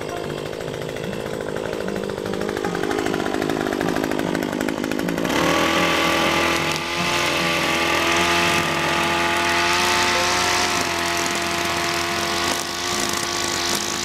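Two-stroke chainsaw running unevenly at low revs, then opened to full throttle about five seconds in and held at a steady high whine, with a brief dip near the end.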